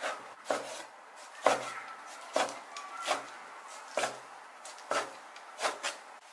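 Chinese cleaver chopping pork belly into small dice on a wooden chopping board: about nine separate, unevenly spaced chops, each a sharp knock of the blade on the board.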